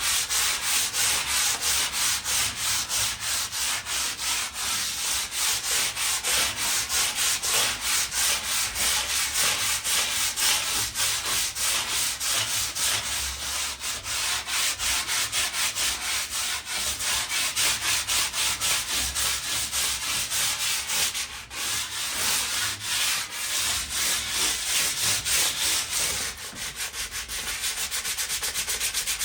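Sandpaper rubbed by hand over a rusty metal patio table top in quick, even back-and-forth strokes, scouring off surface rust before painting. The strokes break off briefly about two-thirds of the way through, then carry on.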